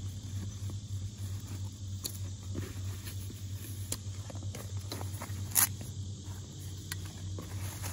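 Canvas shoulder bag being handled and its flap opened: fabric rustling with scattered clicks and taps, the loudest a sharp snap about five and a half seconds in as the flap comes free. A low steady hum runs underneath.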